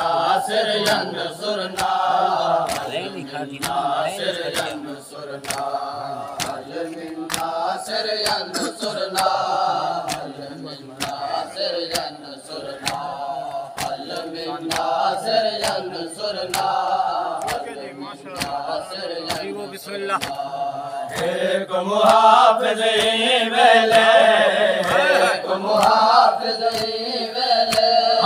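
Men chanting a nauha, a Shia lament, together in a steady rhythm, kept in time by regular chest-beating (matam) slaps, about one or two a second. About three quarters of the way through, the chant grows louder as more voices join in.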